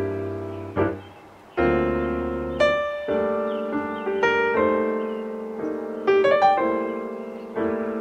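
Background piano music: notes and chords struck one after another at a slow pace, each fading away.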